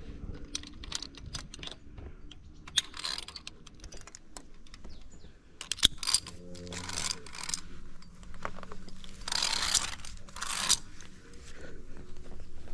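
Metal via ferrata gear clicking and clinking: carabiners and lanyard hardware knocking together, with several short bursts of rustling noise.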